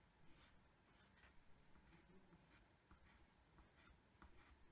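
Pencil drawing eyelashes on paper: short, light strokes, faint scratches about twice a second.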